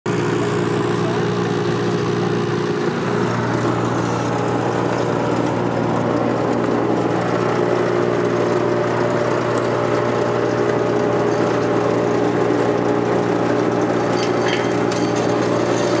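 Machine engines running steadily, a constant drone that holds one pitch: a mini excavator working beside a wood chipper.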